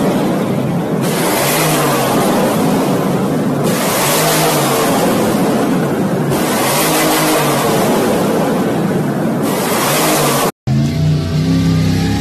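Pickup truck engine revved hard again and again, about every two and a half seconds, with loud crackling and banging from the exhaust as it shoots flames. After a sudden cut near the end, a different engine runs.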